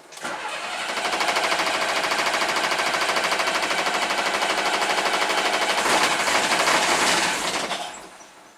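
A bus's diesel engine being cranked over by its starter motor in a fast, even chugging rhythm for about seven seconds, then winding down without catching. The engine is losing fuel prime.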